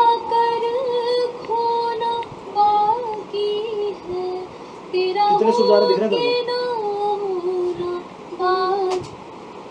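A woman's solo vocal singing a slow melodic line in short phrases with long held notes, played back from the recording over the studio speakers; it stops about nine seconds in.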